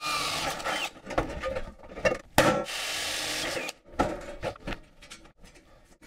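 Power drill boring holes through sheet steel in two short runs, the motor's pitch shifting under load, followed by a few light metal clinks.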